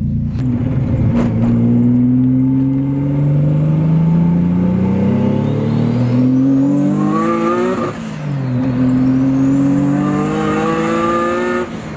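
Single-turbo VQ35HR 3.5-litre V6 accelerating hard. Its pitch climbs steadily for about seven seconds, drops at an upshift about eight seconds in, then climbs again through the next gear until the throttle is lifted near the end. A high whine rises with the revs in each gear.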